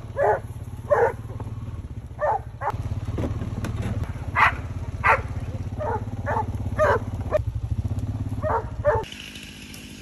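A dog barking in about a dozen short barks at irregular intervals, over the steady low hum of a running tractor engine that stops about nine seconds in.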